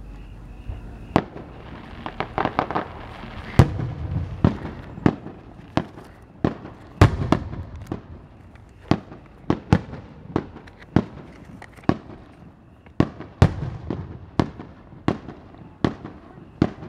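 Aerial firework shells bursting in a quick, irregular string of sharp booms, one every half second to a second. A cluster of crackling reports comes about two seconds in.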